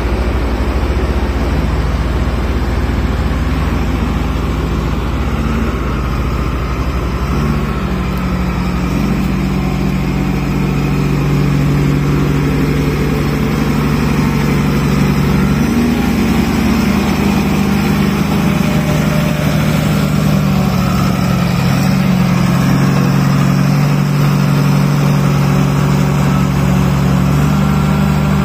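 SDLG motor grader's diesel engine running steadily close by, its pitch stepping up and down a few times as the revs change.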